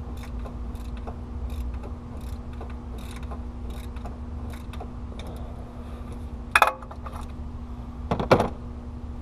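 Socket ratchet clicking in short strokes as bolts are loosened, with two louder metallic clanks, about six and a half and eight seconds in, over a steady low hum.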